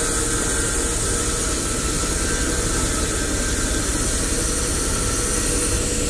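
Horizontal band sawmill running: a steady mechanical hum with several held tones.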